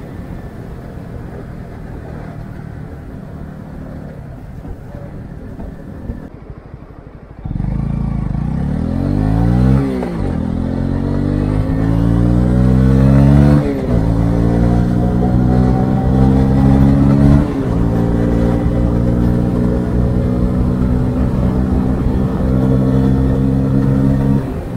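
Stock exhaust of a Honda CB125R's single-cylinder 125 cc engine heard from the rider's chest, with wind noise. For the first seven seconds it is mostly wind and road noise as the bike coasts off the throttle. Then the engine opens up and pulls hard, its pitch climbing and dropping at three upshifts a few seconds apart, before settling into a steady cruise.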